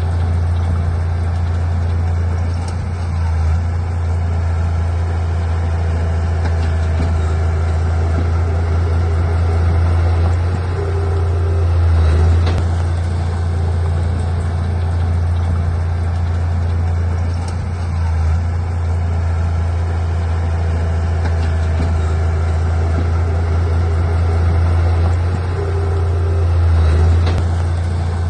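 Bulldozer's heavy diesel engine running steadily under work, its low note shifting briefly every several seconds.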